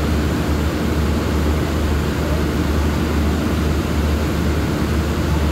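Steady low diesel drone of a standing passenger train idling at the platform, its engines and generators running with an even low hum.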